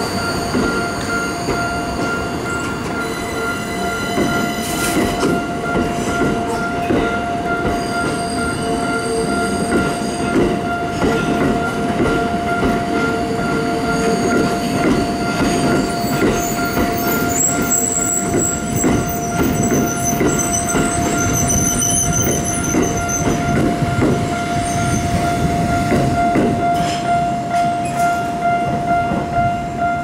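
A Tokyo Metro Ginza Line 1000-series subway train rolls slowly over a level crossing, its wheels clacking over the rails. The wheels squeal shrilly from about halfway through for several seconds. The crossing's warning signal rings steadily the whole time.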